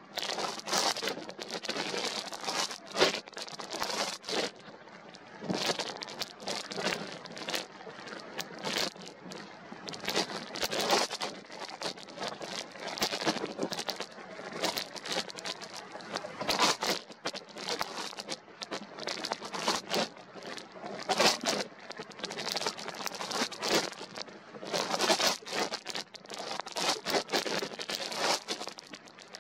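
Strong wind buffeting the camera's microphone, a rough rush that swells and drops in uneven gusts, with many sharp crackles.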